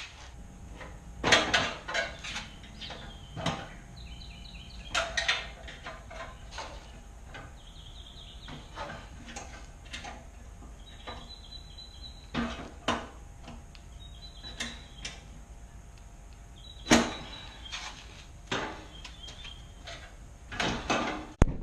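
Irregular metallic clanks and knocks of hand tools and bolts as an ATV's rear bumper is unbolted, a dozen or so separate strikes with pauses between them.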